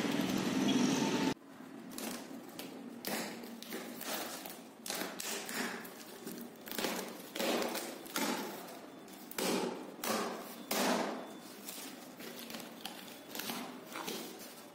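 Street traffic noise for about the first second and a half, then packing tape being ripped and peeled off a cardboard box by hand, in irregular tearing and scraping strokes with cardboard rustling.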